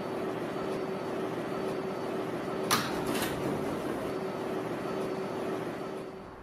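Subway car interior running with a steady hum, and its sliding doors opening with a sharp clunk and rattle about two and a half seconds in.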